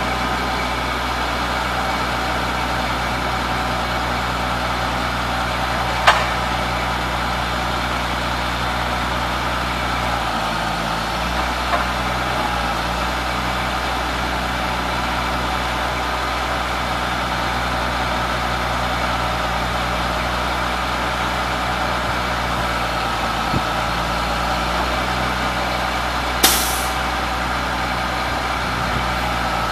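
2004 Chevrolet C7500 truck's engine idling steadily. A sharp click comes about six seconds in, and a brief hiss comes near the end.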